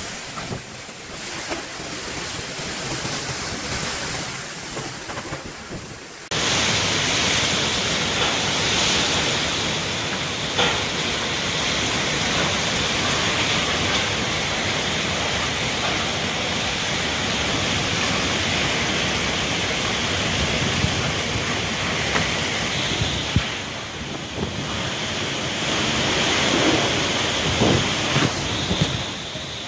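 Strong storm wind gusting through trees, with rain and wind buffeting the phone's microphone as a steady roar. It jumps louder and hissier about six seconds in, and a few short knocks come near the end.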